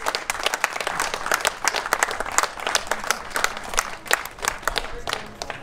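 Audience applauding, many hands clapping at once.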